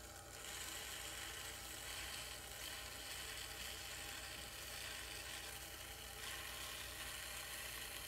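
A metal rib scraping against the wet clay wall of a bottle spinning on a potter's wheel, making a steady hiss that starts just after the beginning and stops abruptly at the end. The low, even hum of the wheel's motor runs underneath.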